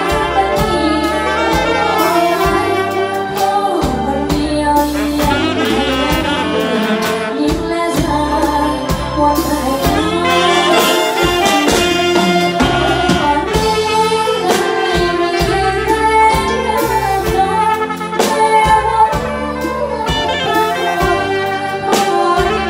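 Thai brass band (trae wong) playing a lively tune on saxophones, trumpets and trombones over a steady beat.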